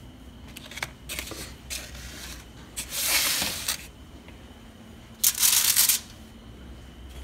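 Paper plates and paper towels being handled and slid about, giving a few short rustling, scraping bursts, the loudest about three seconds and five and a half seconds in, over a faint steady hum.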